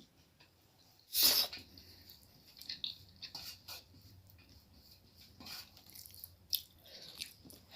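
Close-miked eating sounds: soft chewing and wet mouth noises with small clicks, and one short, sharp burst of breath about a second in.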